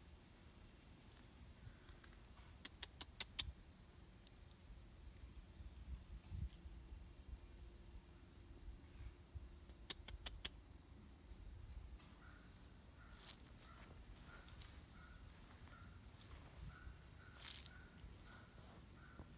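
Faint crickets chirping steadily in a rapid, even pulse. A few quick clicks come in two short runs, and a second, lower chirp starts repeating at a slower, even pace about two-thirds of the way through.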